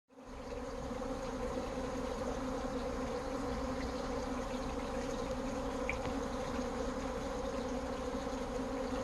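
A swarm of honey bees buzzing as one steady, dense drone. It fades in at the very start and then holds level.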